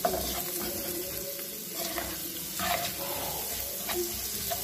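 Wooden spatula stirring diced vegetables and scrambled egg in a non-stick wok, with a few scraping strokes over a steady sizzle of frying.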